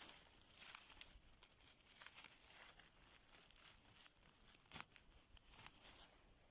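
Faint footsteps rustling and crackling through forest-floor litter, with irregular sharp crackles.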